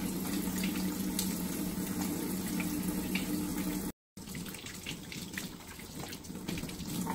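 Water from a kitchen faucet running steadily into a stainless steel sink as hands are washed under the stream, with a brief gap in the sound about four seconds in.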